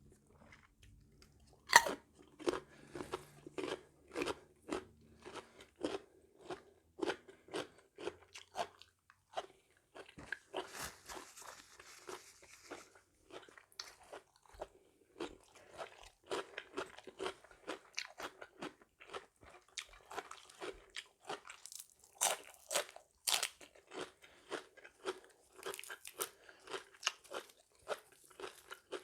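A person chewing and crunching food close to the microphone: a steady run of crisp crunchy bites, roughly two or three a second, while eating a Thai spicy seafood salad.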